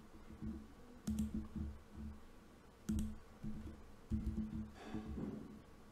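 Two sharp computer mouse clicks, about a second in and again about three seconds in, over a faint low irregular background.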